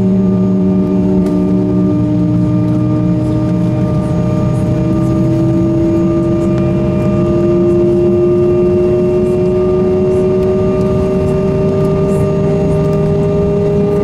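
Cabin sound of an Embraer E170's twin CF34 turbofan engines at taxi power: a steady hum with several whining tones, one of them rising slowly in pitch throughout.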